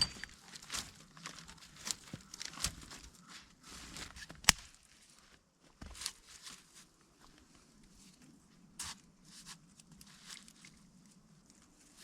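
Irregular rustling, crunching and snapping of someone moving about in snowy woods and handling twigs and branches, busiest in the first half, with one sharp snap about four and a half seconds in.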